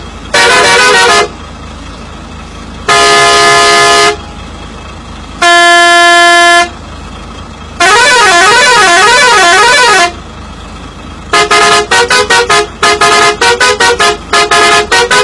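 Multi-tone musical bus horn, the 'telolet' kind, playing a sequence of blasts. First a short trilling blast, then a held chord, then a single held note, then a wavering blast about two seconds long, and finally a quick run of short staccato toots, about four a second, over the last four seconds.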